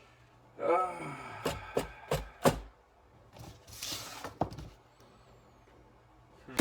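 Handling of an old motorcycle seat and its rotted foam: a short voiced exclamation, then several sharp knocks and a brief rasping, scraping rustle, with a couple of further clicks.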